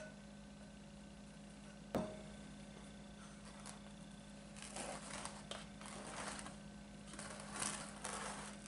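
A rubber spatula scraping and spreading thick batter across a baking pan, a run of soft scraping strokes in the second half. A single sharp knock about two seconds in as the glass mixing bowl is set down.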